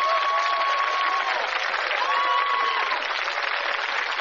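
Studio audience applauding steadily. Two held high notes, each about a second long, sound over the clapping.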